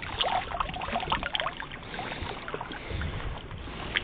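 Shallow water splashing and sloshing as a hand net is worked through weedy river shallows and lifted out, with a low wind rumble on the microphone and a single sharp tap near the end.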